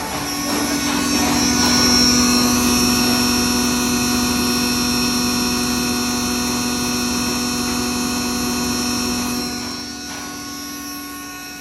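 A 20 hp stoneless maize grinder with its blower running, a loud, steady mechanical whine made of several held tones. About ten seconds in it grows quieter as its lowest strong tone drops out.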